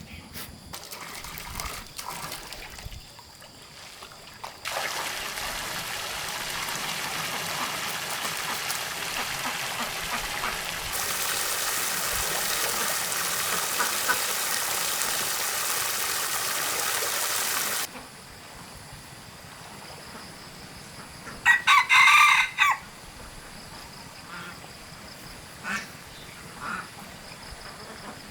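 A steady rushing, hissing noise runs for about thirteen seconds and gets louder partway through, then cuts off suddenly. A few seconds later, farm fowl give a short burst of loud honking calls, with a couple of fainter calls after.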